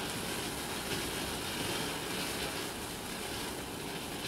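Ground firework fountain burning, spraying sparks with a steady rushing hiss.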